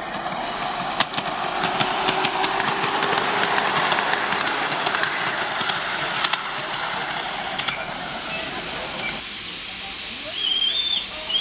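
Ride-on miniature railway train rolling along the track, with its wheels clicking over the rail joints. From about eight seconds in, a small live-steam locomotive hisses steadily. Two short high chirps come near the end.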